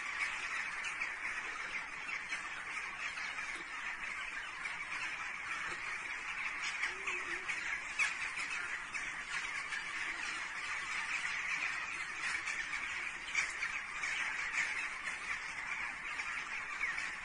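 A large flock of birds calling all at once: a dense, unbroken chatter of many short overlapping calls.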